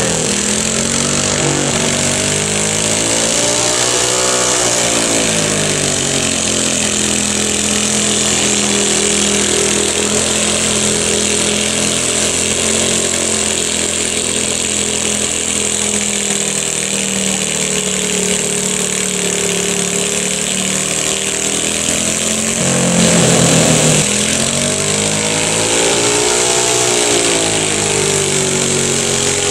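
Small, high-revving engine of a garden pulling tractor running under load as it hauls a weight-transfer sled. The pitch rises and falls several times, with a brief louder rev about three-quarters of the way through.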